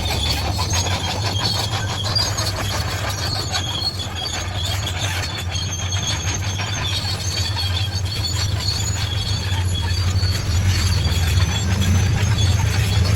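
Bulldozer's diesel engine running steadily under load, with high metallic squealing and rapid clanking from its steel crawler tracks as it moves.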